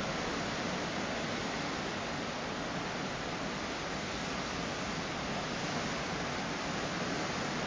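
Steady, unbroken rushing noise of the sea shore, even in level, with no single waves standing out.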